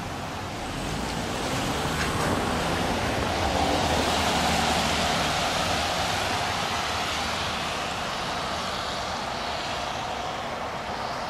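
Traffic noise from a vehicle passing on the wet street: a tyre hiss that swells to a peak about four seconds in, then fades slowly.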